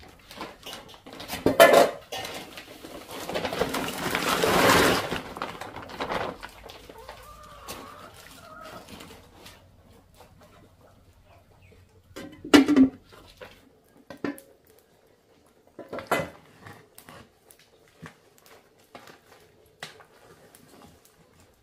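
Clanks and knocks of a large metal cooking pot and its lid as sliced cassava and water go in, with a longer rushing stretch a few seconds in and scattered small knocks after. Chickens cluck here and there.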